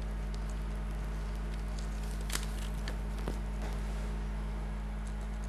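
Steady low electrical mains hum, with a soft rustle and two small clicks a little past two seconds in and about a second later as over-ear headphones are pulled off and handled.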